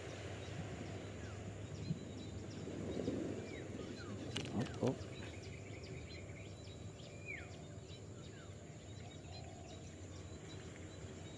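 Steady outdoor background noise with faint, short falling bird calls now and then, and a couple of brief knocks about four and a half seconds in.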